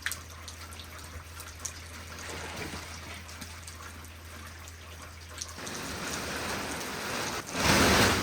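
Steady rain falling, with scattered ticks of drops landing close by. Near the end comes a brief, louder rush of noise.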